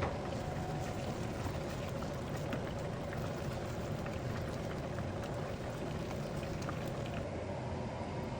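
Risotto simmering in the pan: a steady bubbling hiss with scattered tiny pops, and one sharp click right at the start.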